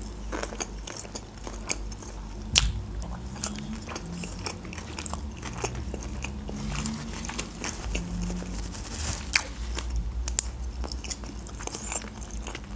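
Chewing a mouthful of sushi roll: soft, wet mouth sounds with crunching and scattered small clicks, the sharpest about two and a half seconds in.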